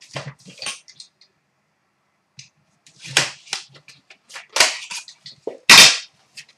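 Trading card pack packaging being opened and handled: a string of short, sharp crackles and rustles, the loudest just before the end.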